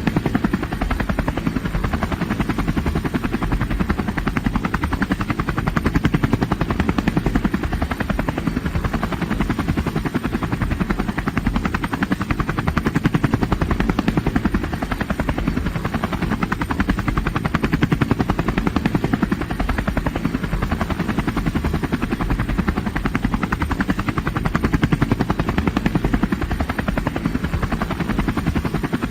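Helicopter running with its rotor blades beating in a steady, rapid chop. The level swells and eases a little every several seconds.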